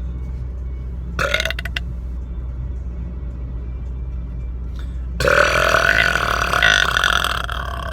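A man burping inside a car: a short burp about a second in, then a long, loud belch of over two seconds starting about five seconds in, over the steady low rumble of the car.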